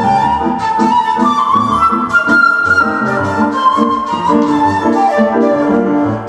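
Seven-hole shakuhachi (1.6-shaku bamboo flute) playing a slow melody of long held notes over piano chords.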